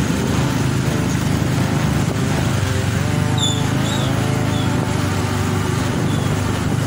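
Motorcycle riding along at a steady pace: engine running with road and wind noise. A few short high chirps come through about halfway.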